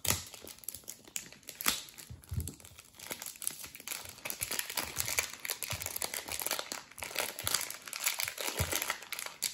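A blade snapping through a puzzle cube's packaging, two sharp clicks in the first two seconds, then continuous crinkling and rustling of packaging as the cube is unwrapped and pulled out of its box.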